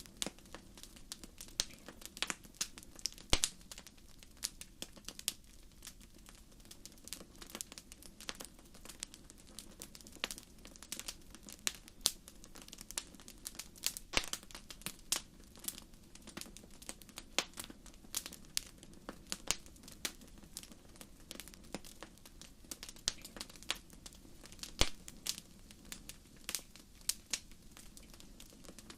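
Fireplace wood fire crackling: irregular sharp pops and snaps, several a second, with a few louder pops, over a faint low steady rumble.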